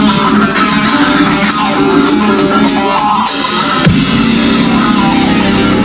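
Live heavy rock band playing an instrumental passage: distorted electric guitars holding notes over drum kit and cymbals, with a quick downward pitch dive about four seconds in.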